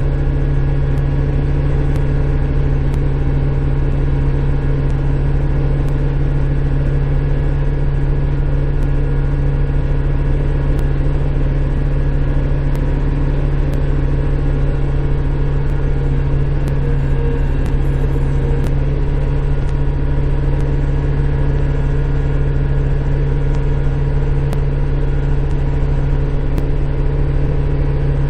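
Kubota Grand L5740 tractor's diesel engine running steadily at working speed, heard from inside the closed cab, as it drives a rear-mounted snowblower. It is a loud, even drone with a strong low hum that holds unchanged throughout.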